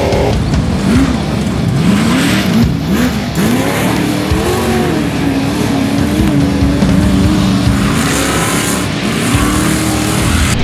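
Trophy truck's race engine revving hard on dirt, its pitch climbing and dropping several times, then holding steadier before climbing again near the end.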